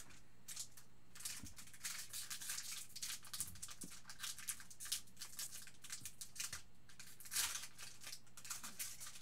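Foil trading-card pack wrapper crinkling and rustling in the hands as it is handled and opened, in a quick irregular run of crackles with a louder rustle about seven seconds in.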